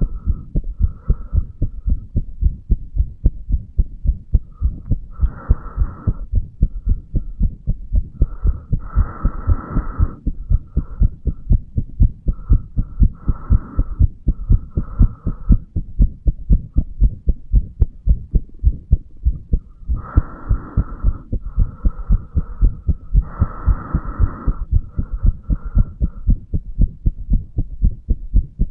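Adult man's heartbeat picked up over the mitral valve area of the chest: a steady, regular run of low lub-dub thumps. A fainter, higher hiss comes and goes several times behind it.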